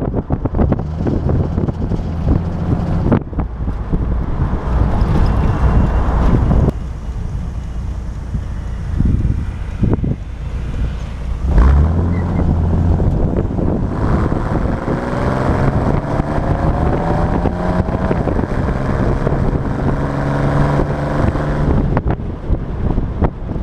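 4.3-litre V6 with dual exhaust in a 1931 Ford Model A coupe, heard from inside the cabin while driving, with wind noise. The engine pulls up in revs and drops off about seven seconds in. It thumps back on near the middle and climbs in a long rising pull, then eases back.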